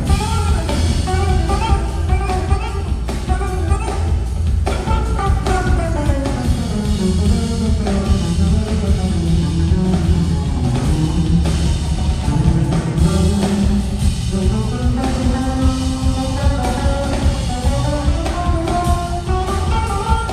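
Live band playing a funk-soul number, with drum kit, electric bass, guitar and keyboards over a steady beat. In the middle a melodic line glides down in pitch and then climbs back up.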